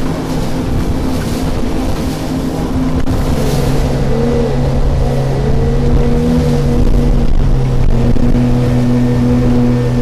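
Outboard motor of a jet boat running steadily under way. Its pitch drops slightly about three seconds in and wavers briefly around the middle.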